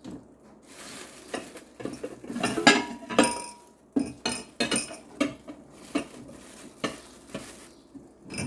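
Dishes and cutlery being handled: a string of irregular knocks and clinks, with one ringing clink about three seconds in.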